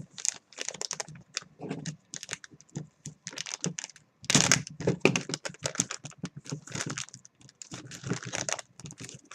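Rustling and crinkling of plastic packaging with a quick run of light clicks and taps from hard plastic card cases being handled, loudest about halfway through.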